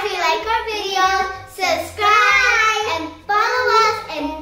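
Children singing a song together, with long held, gliding notes.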